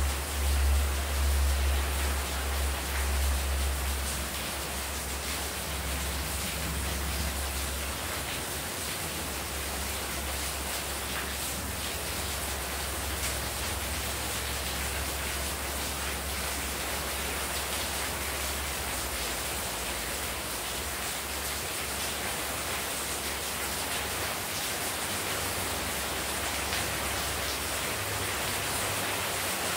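Heavy rain falling steadily on a paved courtyard and potted plants, with runoff pouring off the roof edge. A deep low rumble is loudest in the first few seconds and has faded away by about eight seconds in.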